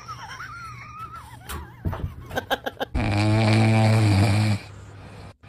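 A French bulldog puppy snoring: one long, loud, deep snore starting about three seconds in and lasting over a second. Before it, a dog's high wavering whine and a few short yips.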